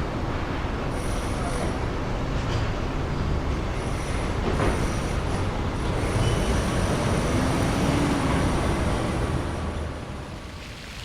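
Steady low rumble of a large vehicle in motion, with thin high squealing tones that come and go, dying down near the end.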